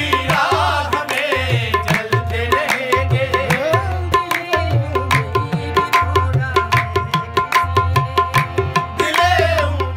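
Tabla played at a fast qawwali rhythm: crisp, rapid strokes on the small wooden dayan over deep ringing booms from the metal bayan, with a wavering melodic line above the drums.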